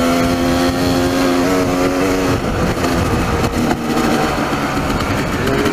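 Dirt bike engine running at a steady pitch under throttle, falling away for a couple of seconds around the middle and then picking up again, over a heavy rumble of wind on the microphone and rough trail.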